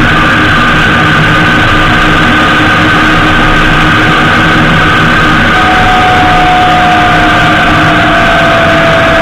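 Loud, steady wind rush and road noise from a Honda GL1800 Gold Wing at cruising speed, with the flat-six engine's hum underneath. A whining tone comes in about halfway and sinks slightly in pitch.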